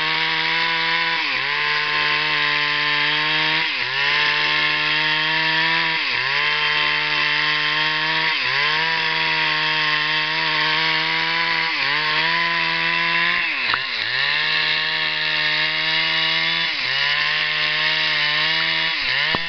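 Stihl two-stroke chainsaw running at high revs while cutting wood. Its pitch dips briefly and recovers about every two and a half seconds.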